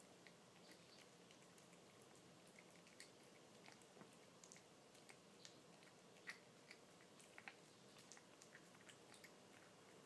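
A cat chewing and licking wet cat food off a plate: faint, irregular small wet clicks, a few a second, over quiet room hiss.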